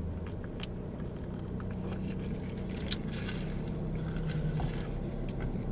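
Low steady hum of a car running, heard from inside the cabin, with a few faint small clicks and handling noises.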